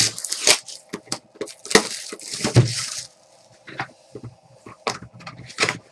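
Plastic shrink wrap and cardboard of a sealed trading-card box being torn open and handled: sharp crinkling and crackling, densest about two seconds in, then scattered clicks.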